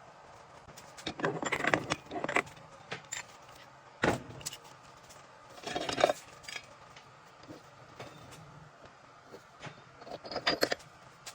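Metal 700R4 transmission parts clinking and clattering as they are handled during disassembly, in several short bursts with a single sharp knock about four seconds in.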